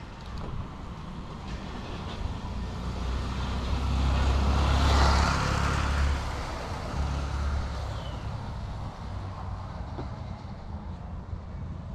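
Road vehicle noise: a low engine drone with tyre and road hiss that builds to a peak about five seconds in and then eases off.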